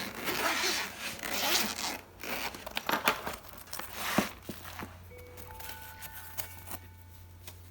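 Zipper on a small fabric suitcase-style box being pulled open in a few swishing strokes, followed by a couple of sharp clicks as it is handled.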